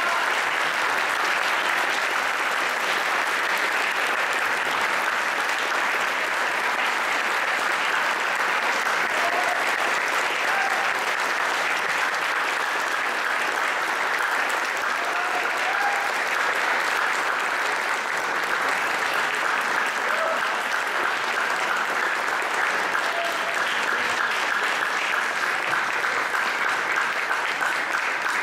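Audience applauding, a steady, even clapping.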